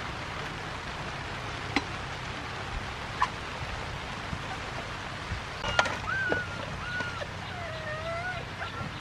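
A few sharp clinks and knocks of a metal ladle and aluminium cooking pot over a steady background hiss. From about six seconds in come several short, high, wavering whines.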